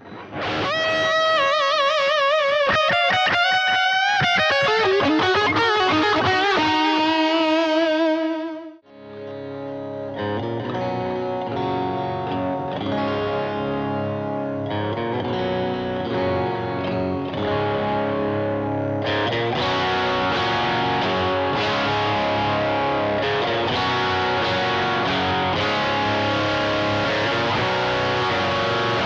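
Electric guitar, a Harley Benton DC Junior with a P90 pickup, played through a Boss DA-2 distortion, Harley Benton American Sound amp simulator, Boss GE-7 equalizer and Boss DD-3 delay, recorded direct with no amplifier. At first, sustained notes ring out with a wavering pitch. After a brief break about nine seconds in comes distorted chord playing, which turns brighter and more distorted about ten seconds later as the guitar's volume is brought up.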